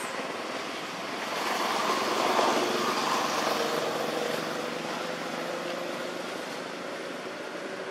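A rushing noise with a faint hum swells about a second and a half in, peaks shortly after, then slowly fades.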